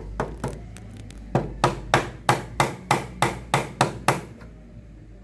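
Claw hammer driving nails into a timber stud frame. A few light taps come first, then about ten hard, quick blows at roughly three a second from about a second and a half in, stopping about a second before the end.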